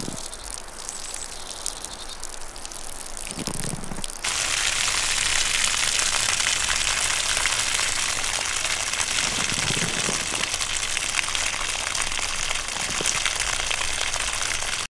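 A steady rushing hiss like heavy rain or wind, which jumps suddenly louder about four seconds in and cuts off abruptly at the end.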